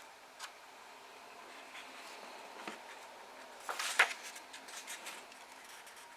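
Pages of an old thrifted book being turned and handled: a few soft paper taps and rustles, with one louder, crisp page flip about four seconds in.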